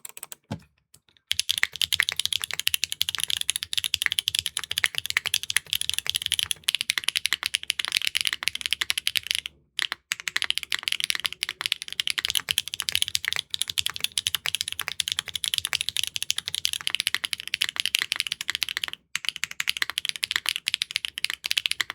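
Continuous typing on Kailh Calligraphy R2 linear switches (LCP housing, MF stem) in a Neo65 Core Plus keyboard with an aluminium plate, GMK keycaps and no foam: rapid, high-pitched clacky keystrokes, with short pauses about a second in, near the middle and near the end. The reviewer faults these switches for an inconsistent clack that changes from press to press.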